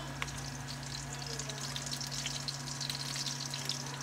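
Chopped onion frying in hot oil in a nonstick pan, sizzling with many small crackles and pops, over a steady low hum. A single sharp click comes just after the start.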